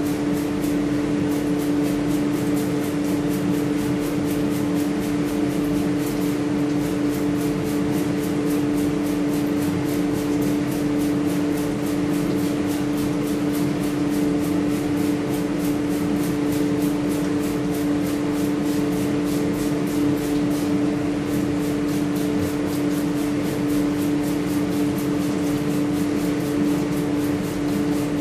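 Steady mechanical hum of a running motor or fan, holding two low pitches without change, over a faint hiss.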